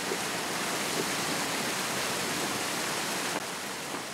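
A small waterfall cascading over rocks: a steady rush of falling water.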